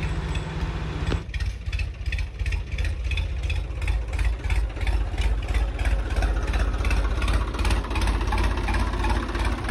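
Swaraj tractor's diesel engine running with a strong low rumble and a regular beat of about four to five pulses a second. A steady hum cuts off about a second in.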